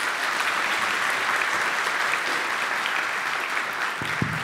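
Audience applauding: many hands clapping in a steady, dense applause.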